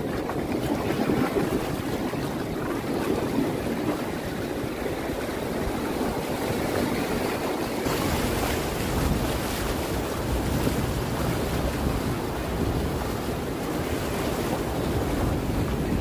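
Ocean surf breaking and washing over shallows, with wind rumbling on the microphone that grows heavier about halfway through.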